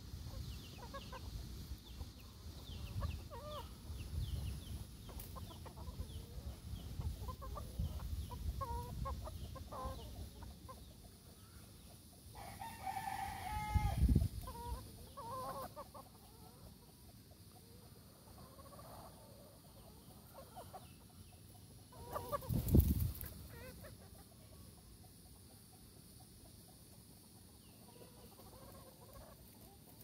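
Backyard gamefowl chickens clucking, with one rooster crowing partway through. A short, loud bump later on is the loudest sound.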